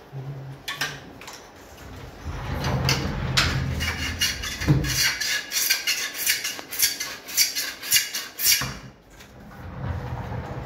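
Sliding loft cabinet doors rolling along their metal overhead track as they are pushed with a wooden stick: a rolling rattle with a quick series of knocks and clacks, busiest in the middle and dying away about a second before the end.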